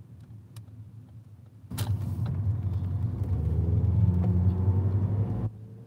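Loud low vehicle rumble heard from inside a car. It starts suddenly about two seconds in, swells a little, and cuts off abruptly near the end.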